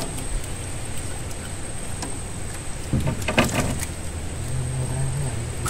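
A small boat engine running steadily with a low hum, with a steady high-pitched whine over it. About three seconds in comes a short cluster of knocks and rattles from gear being handled on the boat.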